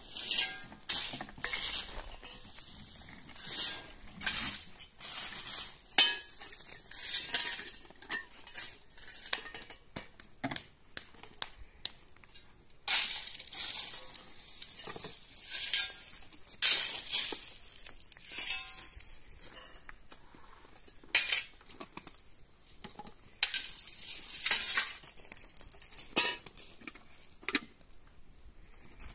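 Metal pots, pans and utensils handled in cooking: irregular clinks and knocks with a brief ring, and a few louder scraping stretches lasting a second or so.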